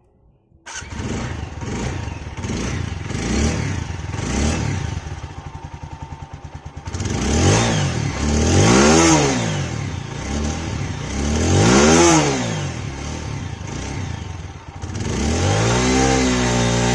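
TVS Apache RTR 160 4V's single-cylinder engine idling and being revved through a new silencer: small throttle blips, then two full revs rising and falling, and a third rise near the end. It revs smoothly, with none of the metallic 'chhan' rattle that the old exhaust made at the top of acceleration, which was blamed on damaged mesh inside the silencer.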